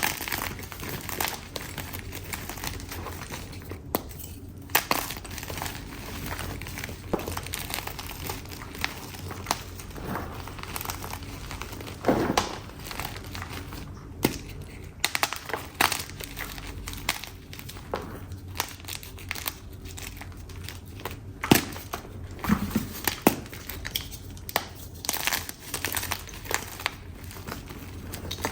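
Chalk being crushed and crumbled, a steady run of irregular dry crunches and crackles, with a few louder sharp snaps scattered through and the crunching growing denser toward the end.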